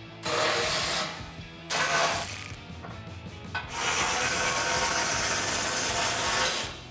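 A power ratchet runs in two short bursts and then one steady run of about three seconds, backing out the bolts that hold the factory rear bumper to its hitch receiver frame.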